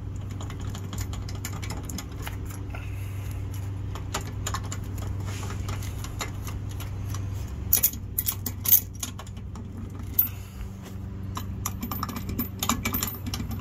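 Metallic clicks and small rattles as a nut is worked off the caging bolt of a truck's air brake chamber, with a few sharper clinks about eight and ten seconds in, over a steady low hum.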